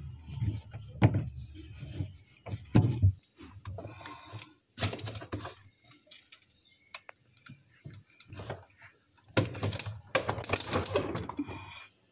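Handling noise from fitting a refrigerator evaporator plate and unplugging plastic wire connectors: irregular clicks, knocks and scrapes, with a few louder bouts of rustling and scraping.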